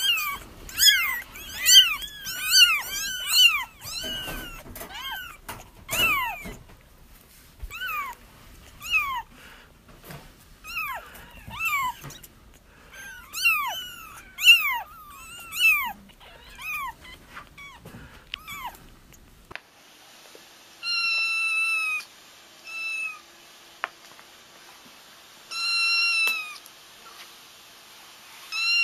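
Young kittens crying, with many short, high, arched mews overlapping several times a second. About two-thirds of the way through it changes to fewer, longer and steadier cries a couple of seconds apart.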